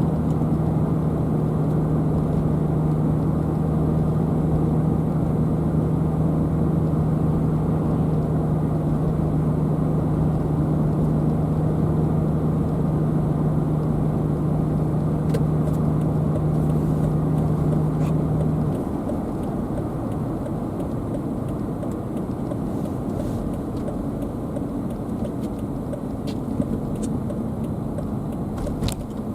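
Car driving, steady road and engine noise with a steady low hum that stops about two-thirds of the way through, after which the overall noise drops a little. A few sharp clicks are heard near the end.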